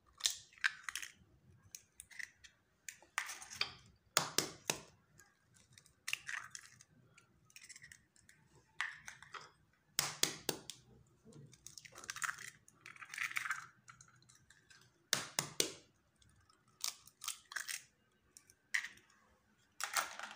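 Eggs cracked one after another into a glass bowl: sharp taps and cracks of eggshell against the glass, every second or two, with some shorter scraping and crackling as the shells are pulled apart.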